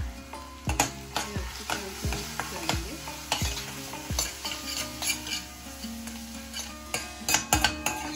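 A steel spoon scraping and clinking against a stainless steel kadai as it stirs a thick onion-tomato masala with freshly added spices, the masala sizzling in hot oil. The loudest clatters come about a second in and again near the end.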